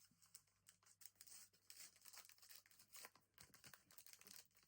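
Faint crinkling and tearing of a foil trading-card pack being opened by hand, in scattered crackles.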